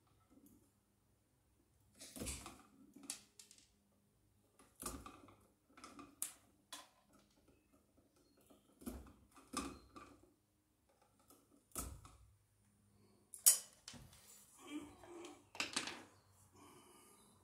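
Irregular snips and clicks of wire strippers cutting and stripping electrical wire at an electrical box, with the wires rustling and knocking against the box; the loudest clack comes near the end.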